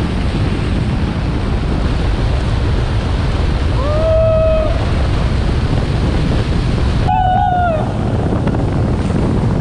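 Wind rushing over the microphone of a moving car, a heavy, steady roar. Two short pitched sounds cut through it, about four and about seven seconds in.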